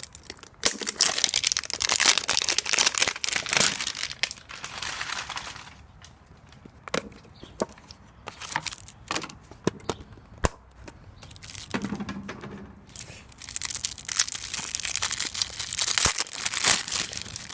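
Trading-card pack wrapper being torn open and crinkled by hand, in two long stretches of crackling, with a few sharp clicks in between.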